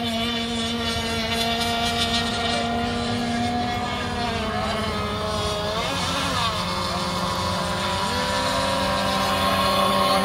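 Several 1/6-scale gasoline two-stroke RC race boats running flat out together, giving a steady, high-pitched engine whine. A few seconds in their pitches slide up and down, and one rises sharply about eight seconds in.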